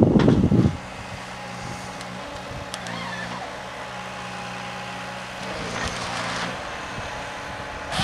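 Ponsse forest harvester's diesel engine running steadily at a distance: a low, even hum. A loud low rumble in the first moment cuts off under a second in.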